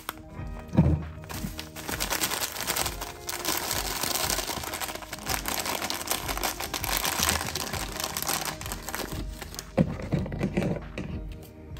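A foil-lined plastic bag of Thai tea mix crinkling as hands squeeze and turn it, with a soft knock about a second in and again near the end, over background music.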